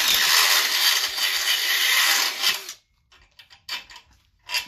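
A cordless drill runs steadily under load, then stops sharply almost three seconds in; a few light knocks and clicks follow.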